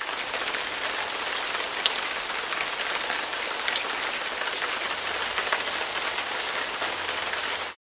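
Steady rain falling: a dense even hiss with scattered sharp drop ticks, cutting off abruptly near the end.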